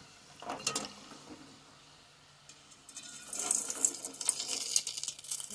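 Gulab jamun balls frying in hot oil, the oil sizzling and bubbling as they are scooped through it with a wire-mesh strainer, with a short metal scrape against the pan about half a second in. The sizzle grows louder and crackles from about three seconds in.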